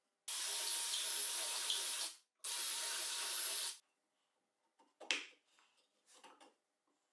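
Wood scraping on wood: the plywood fence-locking block is slid twice along a rail with a steady hissing scrape, once for almost two seconds and once for just over a second, each starting and stopping sharply. Two light knocks follow as it is set in place.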